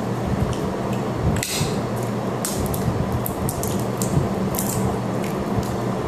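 Sunflower seeds being cracked and shelled: small sharp cracks scattered irregularly, one stronger one about a second and a half in, over a steady low hum.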